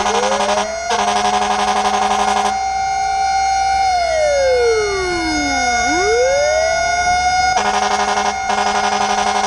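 Fire truck siren wailing: the pitch slides up, holds a high note, falls slowly and rises again. Two loud, rasping horn blasts, each broken by a short gap, sound over it at the start and near the end.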